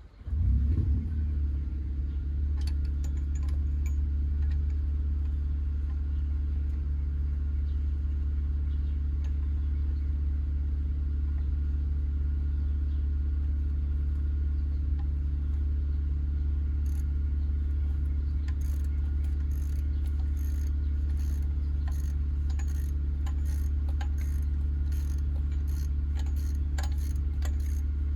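A steady low mechanical drone that starts suddenly and runs on evenly, with scattered light clicks and taps above it that come more often near the end.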